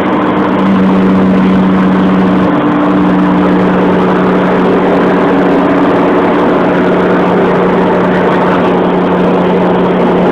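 Car engine droning steadily at high motorway speed, with heavy road and wind noise, heard from inside the car's cabin.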